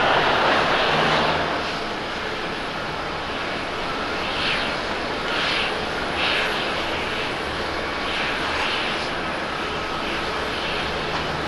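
Jet airliner engine noise. First comes the louder noise of an Airbus A350-900 at takeoff power, which drops off sharply about a second and a half in. The quieter, steady run of a Boeing 737-800's CFM56 engines on final approach follows, with a low hum underneath.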